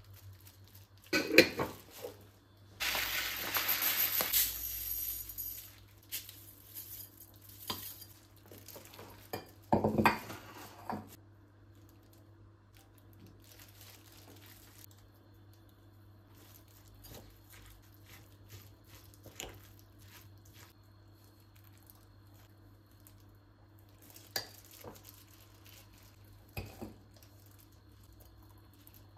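Kitchen utensils and dishes clattering twice, with a hiss lasting a few seconds between them, then a few light clicks.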